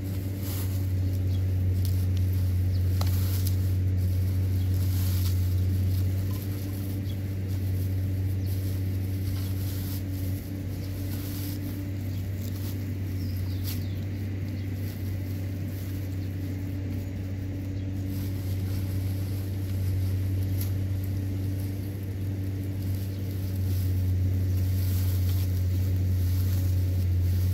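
A motor running steadily with a low hum, its level rising a little near the start and again near the end, with a few faint ticks over it.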